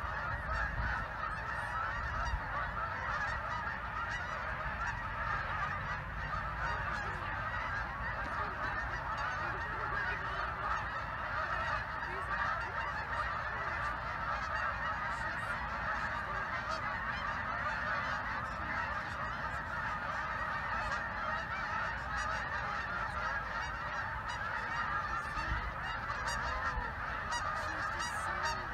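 A large flock of migrating geese flying overhead, honking continuously, with many calls overlapping in a constant chorus.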